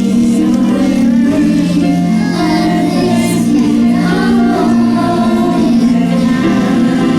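Music: a group of voices, some of them young, singing a song together over instrumental accompaniment.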